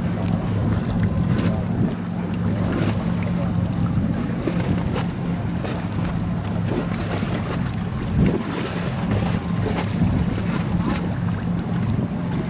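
Wind buffeting the microphone over choppy open water, with a steady low engine drone underneath and scattered crackles of wind noise.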